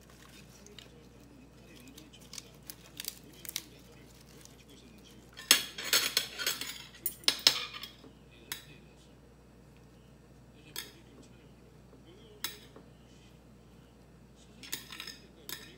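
Metal chopsticks clicking against a stainless steel colander while crisp lettuce leaves rustle as they are picked out. A dense run of rustling and clinks comes about six to eight seconds in, with another shorter one near the end.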